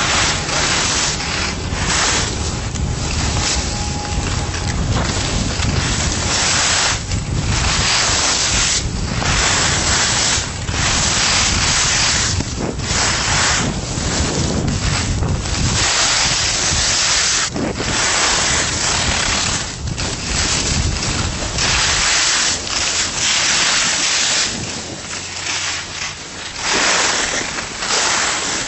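Wind buffeting the microphone of a camera carried by a skier at speed, over the hiss and scrape of skis on packed snow, which surges every second or two through the turns. It eases a little near the end.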